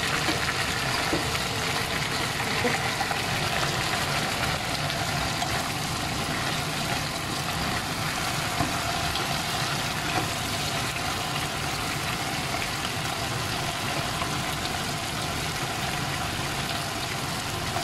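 Chicken wings sizzling steadily in a pot as they brown in their own juices.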